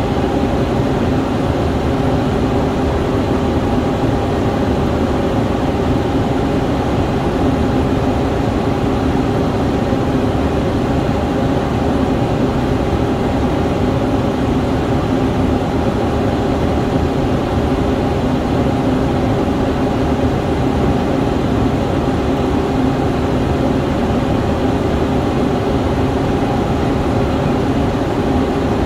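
Steady cockpit noise of a Cessna Citation CJ4 business jet in flight on approach: an even drone of rushing air and its two rear-mounted Williams FJ44 turbofans, with a low hum under it and no change in pitch or level.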